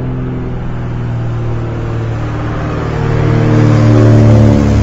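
ENYA 60 model-airplane engine on an RC PT-40 running, then revving up from about two and a half seconds in. It grows louder and higher in pitch, peaking near the end.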